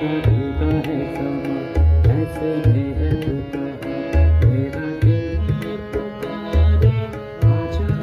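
Live keyboard music: a melody line played over a steady, repeating tabla-style drum beat.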